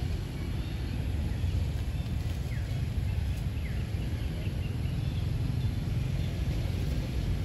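Outdoor ambience: a steady low rumble with a few faint, short, high chirps of birds scattered through it.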